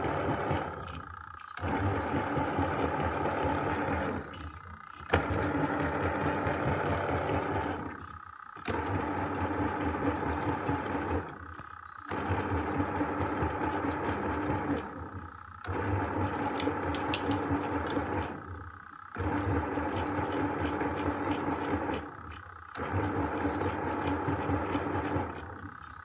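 Small bucket-type washing machine washing: its motor and pulsator run for about three seconds, stop for under a second and start again, over and over as the wash reverses direction. A rattling rides on the run, which comes from the lint filter.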